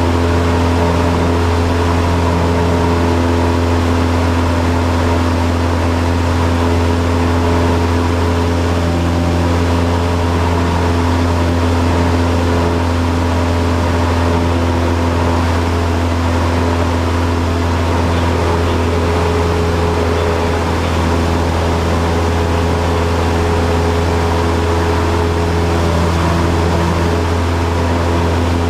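Cessna 172's piston engine and propeller heard from inside the cockpit: a loud, steady drone that holds the same pitch throughout.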